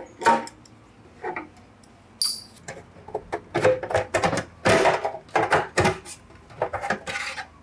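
Irregular clicks, scrapes and rattles of a screwdriver and hands on the metal case of a QNAP TVS-463 NAS as the case screws are taken out and the cover is worked loose and slid off. The busiest handling comes in the middle, with a brief high squeak about two seconds in.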